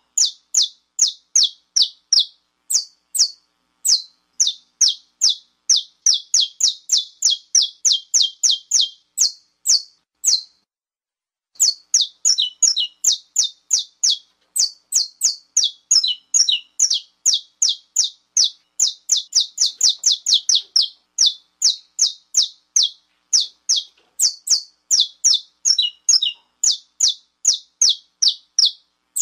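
Saffron finch (canário-da-terra) giving its 'estalo' call: a long run of sharp, high chip notes, several a second, with one short pause about ten seconds in. This is the excited call used to rouse and provoke other males.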